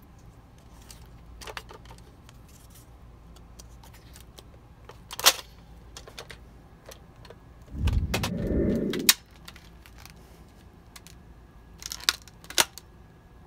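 Plastic clicks and clacks of Nerf blasters being handled: first a Nerf Maverick REV-6, then a Nerf Modulus Barrelstrike. Sharp clicks come about five and nine seconds in, with a dull low rumble lasting about a second just before the second, and two quick clicks near the end.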